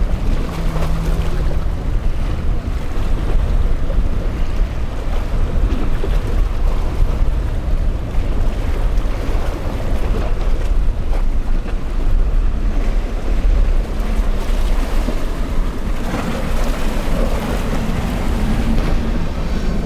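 Surf and breaking waves with heavy wind buffeting the microphone, over the running hum of a small center-console boat's Suzuki outboard motor as it crosses rough water; the engine hum stands out briefly at the start and again near the end as the boat passes close.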